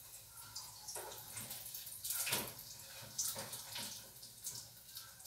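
Zucchini fritters frying in a pan: a steady sizzle with irregular crackling pops, and a louder flurry of pops a little over two seconds in.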